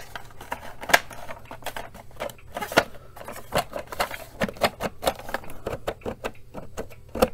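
Plastic case of a Panasonic RF-2400 portable radio being handled and its halves pressed together: a run of irregular plastic clicks and light knocks, a few of them sharper than the rest.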